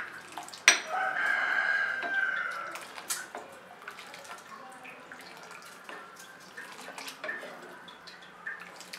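Steel ladle stirring and clinking in a kadhai of buckwheat-greens and yak meat broth that is coming to a bubbling boil, with small splashes and drips. About a second in, just after a sharp clink, a loud drawn-out pitched call sounds for about two seconds.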